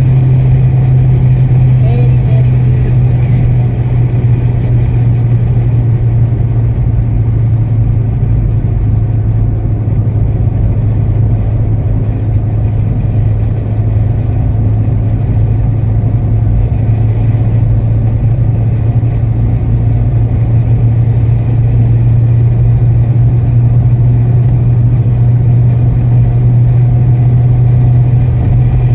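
Steady low drone of a car on the move, heard from inside the cabin, with no change in pitch.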